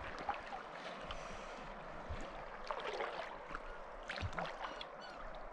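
Fast river current rushing, with a few short knocks and small splashes.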